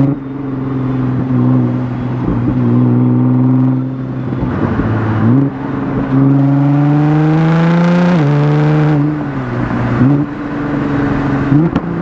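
Nissan GT-R R35's twin-turbo VR38 V6, with Cobb intakes and a non-catted midpipe, accelerating hard through the gears. The engine note climbs and then steps sharply in pitch at each shift, about every two seconds.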